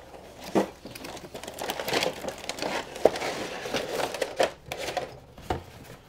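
A long cardboard shipping box being handled and tipped to get its contents out: cardboard and packing rustling and scraping, with irregular knocks, the sharpest about three seconds in.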